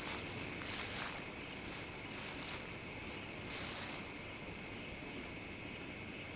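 Footsteps crunching through dry leaves, a few scuffing steps in the first four seconds, over a steady chorus of night insects chirring at two high pitches.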